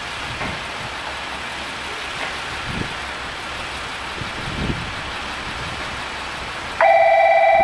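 Diesel railcar of the Amagi Railway AR300 series running at a station platform, a steady engine hum with a few low thumps. Near the end a loud, sustained two-note horn sounds.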